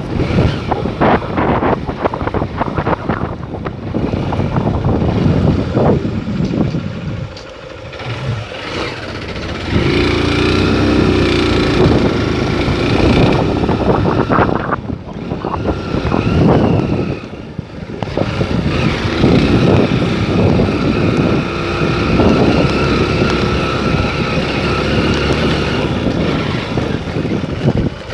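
A vehicle engine running while travelling along a street, with wind noise on the microphone. The sound dips briefly twice.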